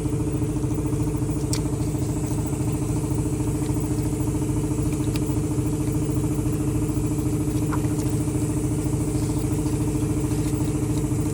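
Cadillac Escalade 6.2-litre V8 idling steadily with an even pulse. The engine carries cylinder-deactivation solenoid codes (P3401, P3425, P3441, P3449) and a shaking complaint that the mechanic traces to the solenoid wiring.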